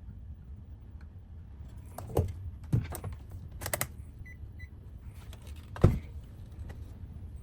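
A few short knocks and clicks, four in all, the loudest near the end, over a steady low hum.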